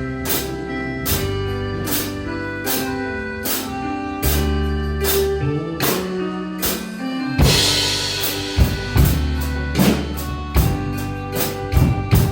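Drum kit played along with a song's backing track, keeping a steady beat. About seven seconds in the bass briefly drops out, then a cymbal crash comes in as the beat resumes.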